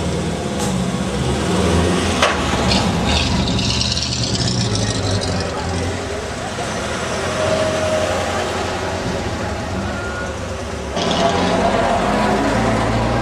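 Car engines running at idle, with people talking in the background. The sound changes abruptly about eleven seconds in.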